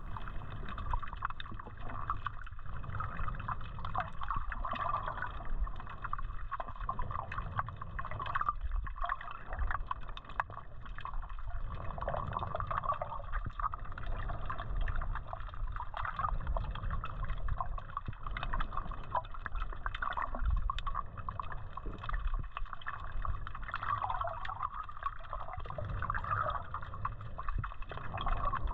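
Underwater water noise picked up by a submerged camera while snorkeling: a steady wash of moving water with many faint clicks throughout.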